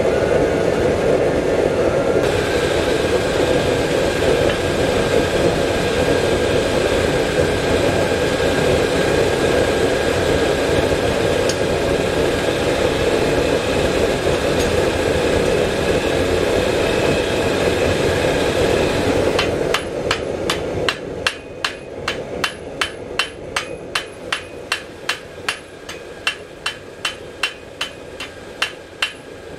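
A steady rushing noise runs for about the first twenty seconds and stops abruptly. Then a hand hammer strikes hot steel on an anvil, about two blows a second, each blow ringing.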